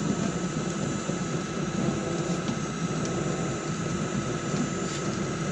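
Radio-controlled scale trucks and construction machines running: a steady mechanical whine with a rough, continuous rumble underneath and a few faint clicks.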